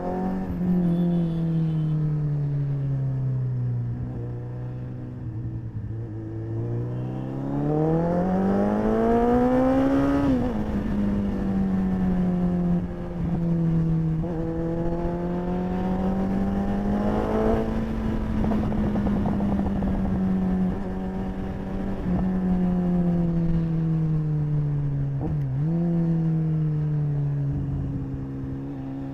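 Suzuki Hayabusa's inline-four engine running under way: the note climbs steeply under acceleration about eight to ten seconds in, drops back, then rises and falls gently as the bike cruises, eases off and picks up again.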